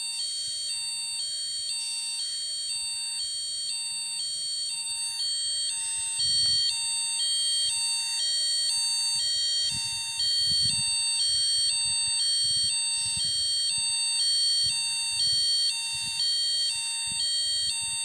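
Piezo buzzer driven by an Arduino Uno, sounding a two-tone burglar-alarm pattern: a lower tone and a higher tone alternate evenly, about one low-high pair every second and a bit, repeating without a break.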